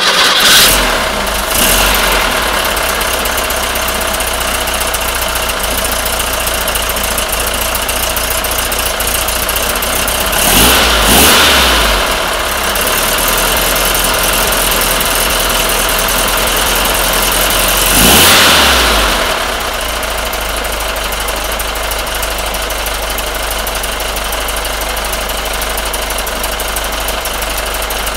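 Volkswagen 1600 single-port air-cooled flat-four, fed by dual Weber 34ICT carburettors through a merged exhaust header, idling just after starting. The revs swell briefly near the start, again around ten to twelve seconds in and around eighteen seconds in, then it settles into a steady, slightly quieter idle.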